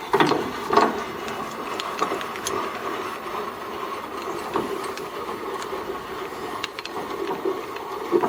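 VECTRAX 7" x 12" horizontal band saw running under its 1 hp motor: a steady mechanical hum with scattered light ticks.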